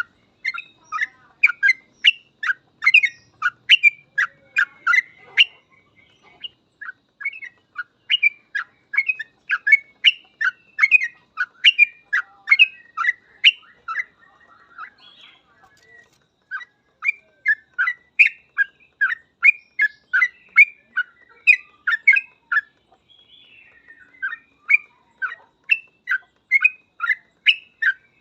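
Yellow-vented bulbul (trucuk) singing a fast, chattering run of short chirped notes, several a second, in long bursts with brief pauses. This is the rapid continuous song that birdkeepers call 'ropel'.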